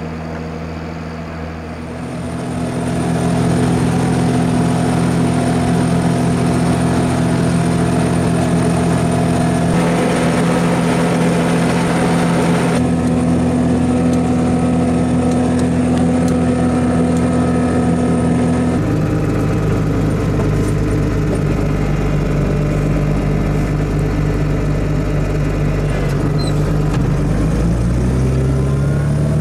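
Fendt Favorit 612 LSA tractor's diesel engine running steadily under load while it pulls a reversible moldboard plough through the soil. Near the end the engine pitch rises.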